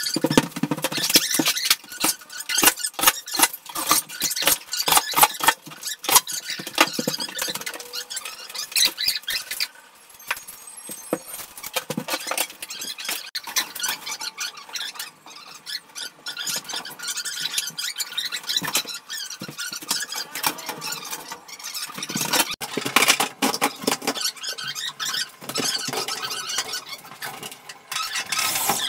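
Light-gauge steel studs and tracks being handled for a partition frame: a busy run of metallic clicks, clinks and scrapes, with squeaks of metal on metal.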